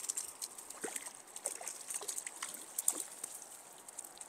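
Stream water trickling and running steadily, with scattered small ticks and clicks.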